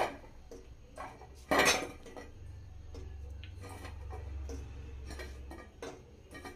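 A few scattered clinks and knocks of metal kitchenware as fried gulab jamuns are picked from a steel bowl and dropped one by one into syrup in a metal kadai. The loudest knock comes about a second and a half in, over a low steady hum.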